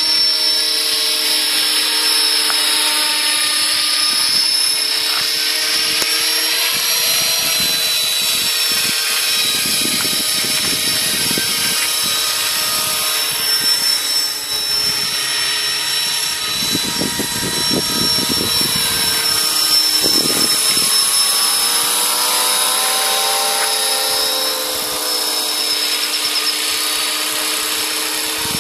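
Radio-controlled model helicopter (scale Hughes 500) in flight, its motor and rotor making a steady high whine that glides up and down in pitch as it manoeuvres. Low rumbles come and go in the middle.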